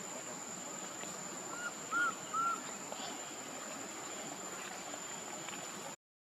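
Steady high-pitched insect drone over outdoor background noise, with three short chirps in quick succession about two seconds in; the sound cuts out abruptly near the end.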